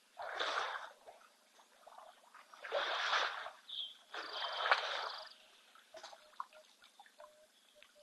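African elephant blowing and sniffing through its trunk right at the microphone, three rushing bursts of air, the last and longest about four seconds in. Faint short repeated notes follow near the end.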